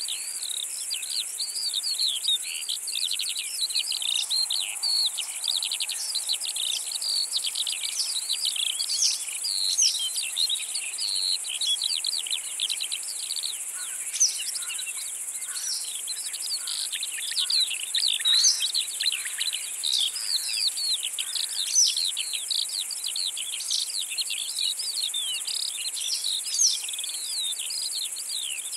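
Steady high-pitched insect chorus in the grass, with busy, continuous twittering birdsong of quick rising and falling notes layered over it.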